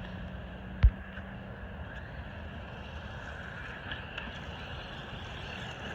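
Traxxas Maxx electric RC monster truck running, its motor a faint whine that rises and falls over a steady rushing noise, with one sharp thump about a second in.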